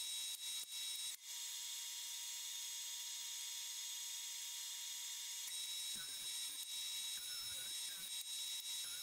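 Steady faint high-pitched hiss with a thin whine in it, briefly dropping out a few times near the start; faint knocks and small squeaks come in from about six seconds on.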